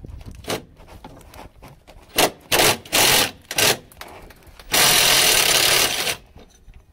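Bosch cordless impact driver with a socket hammering on an exhaust bracket bolt to loosen it: four short bursts, then one longer burst of about a second and a half near the end.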